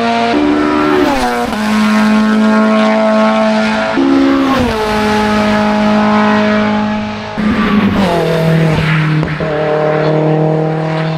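Hill-climb race car's engine at full throttle on the approach. It holds a steady high note and drops sharply in pitch three times, about every three seconds, at each gear change.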